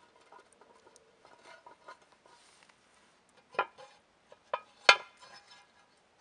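Cast-iron Dutch oven lid clanking against the pot as it is lifted off: light scraping and rattling, then three sharp ringing metal clinks in the second half, the last the loudest.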